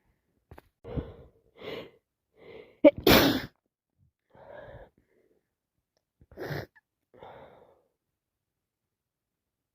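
A woman with sinusitis sneezing once, loudly, about three seconds in. Short catching breaths come before the sneeze and quieter breaths and sniffs follow it.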